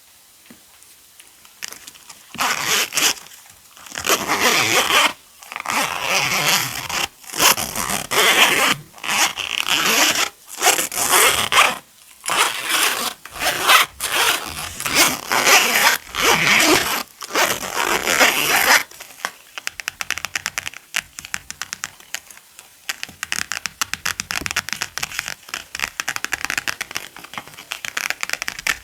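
Sand rustling in repeated short rushes, about one a second, each lasting under a second. For the last ten seconds they give way to a dense, fine crackle of many tiny clicks.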